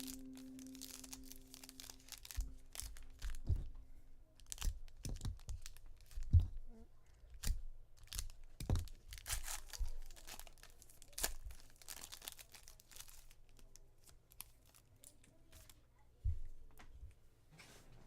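Plastic trading-card pack wrappers being torn open and crinkled, with irregular rustles and clicks from cards being handled.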